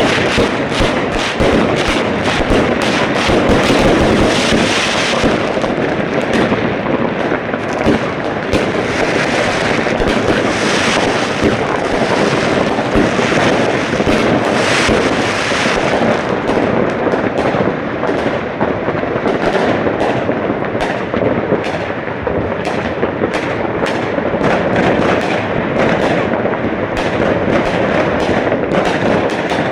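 Fireworks going off in a dense, unbroken barrage of bangs and crackling, many overlapping at once.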